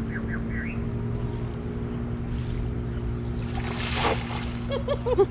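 A fishing cast net thrown out and landing flat on a river, with a brief splashing hiss about four seconds in, over a steady low hum. Short voice-like calls follow near the end.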